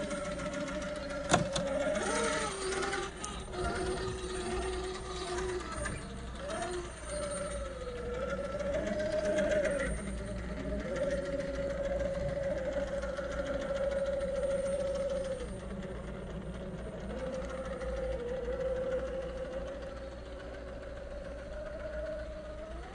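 Axial SCX10 III Jeep Gladiator RC crawler's 2300kv brushless motor and gearbox whining as it crawls over rocks, the pitch rising and falling with the throttle. A sharp knock about a second in.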